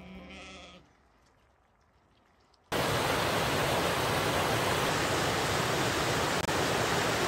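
Music fades out in the first second. After a short near-quiet stretch, a loud, steady rushing noise cuts in abruptly about three seconds in and holds even, with one brief dropout near the end.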